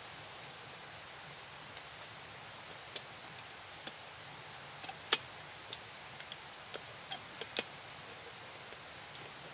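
About ten sharp, irregular clicks and taps of hands working at a small metal camp stove, the loudest about five seconds in, over a steady background hiss.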